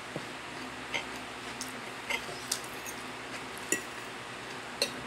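A metal spoon clinking and scraping against a plate while eating, a handful of light, irregular clicks over a quiet background.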